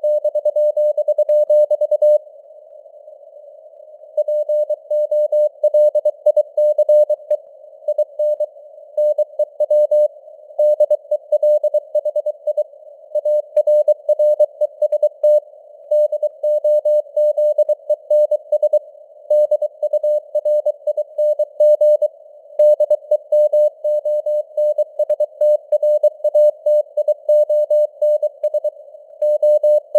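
Morse code (CW) at 23 words per minute: a single steady-pitched tone keyed on and off in dits and dahs, in a narrow band of simulated radio receiver hiss, with the signal strength fading up and down (QSB). There is a pause of about two seconds shortly after the start.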